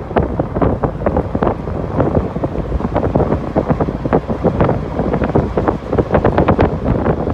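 Strong wind buffeting the microphone: a loud, irregular rumble with rapid fluttering gusts.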